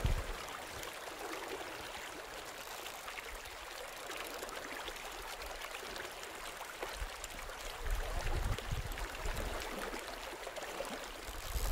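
Steady rush of flowing river water, a fairly even hiss without a pitch, with some added low rumble from about eight seconds in.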